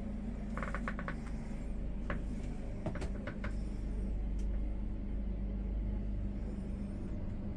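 Steady low rumble and hum of the Indian Pacific passenger train, with a quick run of light clicks about a second in and a few single knocks or rattles after.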